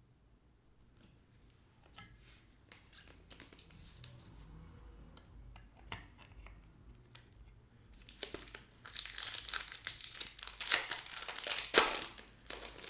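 A trading-card pack's wrapper is torn open and crinkled, loud and dense from about eight seconds in. Before that, light clicks and rustles of cards being handled.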